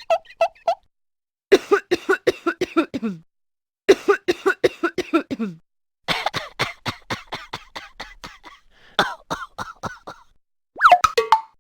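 A run of short comic sound-effect clips: several separate bursts of rapid, stuttering, voice-like pulses, a few falling in pitch at the end, followed near the end by quick sliding pitch sweeps.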